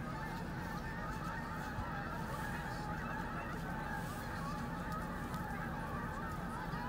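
A flock of geese honking, many overlapping calls going on continuously, with a low steady rumble underneath.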